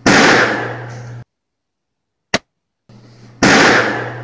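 A sharp bang that rings on in a hard-walled room for about a second before cutting off abruptly, then a single short, dry pop with no echo at all, as in an anechoic chamber, then a second loud ringing bang near the end.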